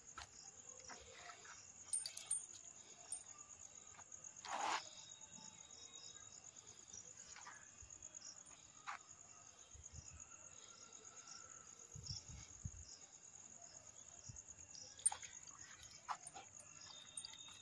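Crickets chirping, a steady high trill throughout, with scattered faint clicks and one short louder noise about four and a half seconds in.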